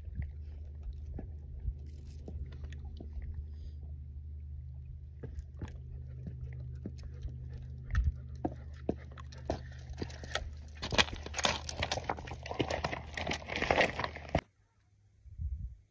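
Footsteps crunching and clicking on loose rocks close to the microphone, over a low steady rumble. The steps grow denser and louder in the last few seconds, then cut off suddenly.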